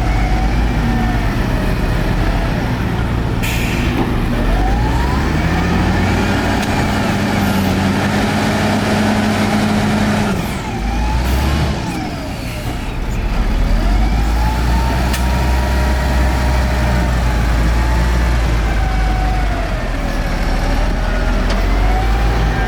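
Heavy diesel earthmoving machinery running under load. The engine note rises about five seconds in, holds, and drops back about ten seconds in, over a wavering high whine and a few short clanks.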